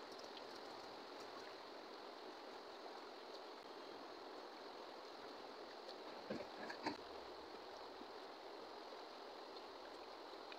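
Faint, steady rush of a flowing river, with two short knocks about six and seven seconds in.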